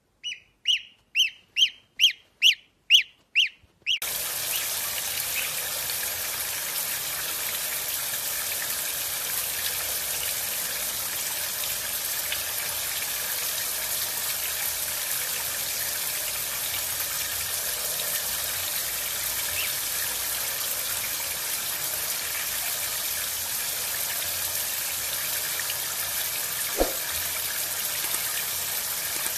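A gosling peeping eight times, about two calls a second. After about four seconds it gives way to the steady hiss of a running shower.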